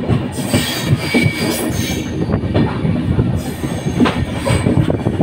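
Passenger train coaches running over the track, heard from an open coach door: a steady rumble and clatter of wheels on rails, with a brief high wheel squeal about a second in and sharp clicks over the rail joints.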